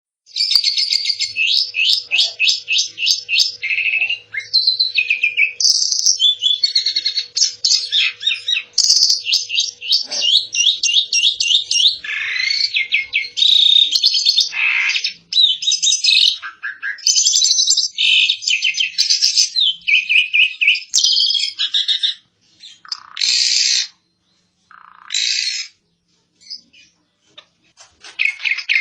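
Asian pied starling (jalak suren) singing a loud, varied song of rapid runs of repeated notes and trills. About two-thirds of the way in it breaks off into a few separate calls with pauses between them.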